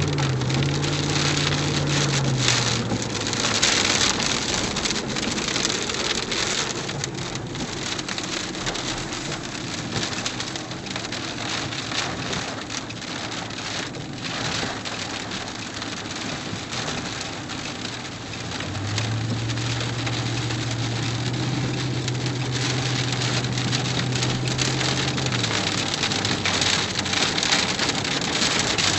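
Rain pattering on a moving vehicle's windows and body, a dense steady rush dotted with drop clicks. A low hum rises, holds for several seconds and falls away, once about 19 seconds in and briefly at the start.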